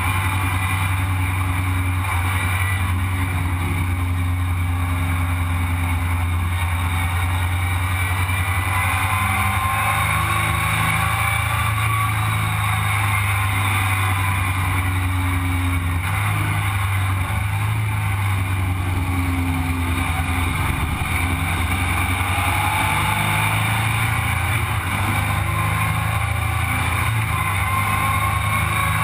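Sandrail engine running steadily at cruising speed on the road, with wind rushing over the open frame.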